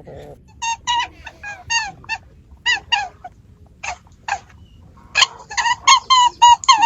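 An animal giving many short, high calls that bend in pitch, in quick clusters with a short pause around the middle, then coming fast and steady from about five seconds in.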